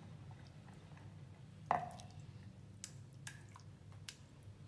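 Wooden pestle mashing and stirring a wet, soupy paste in a wooden mortar: soft squelching with scattered clicks, and one louder knock a little under two seconds in.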